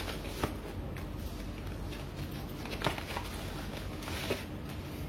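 Hands handling small objects on a table: three short sharp clicks, about half a second in, near three seconds and past four seconds, over a low steady hum.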